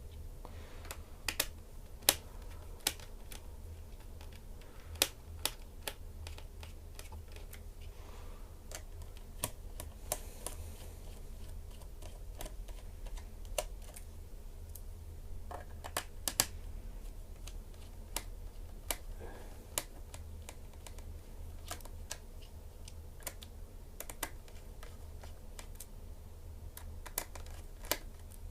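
Irregular light clicks and taps of a small screwdriver and screws against a laptop's plastic bottom cover as the cover screws are taken out, a few clicks sharper than the rest.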